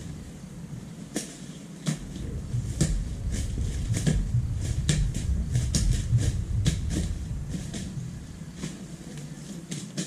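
Irregular sharp clicks and snaps, one to a few each second, from roadside weeds being cut and pulled by hand, over a low, uneven rumble.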